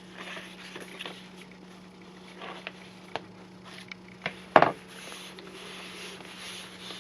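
Paper being handled: soft rustling and light taps as journal pages and glued pieces are pressed and moved, with one sharper tap about four and a half seconds in.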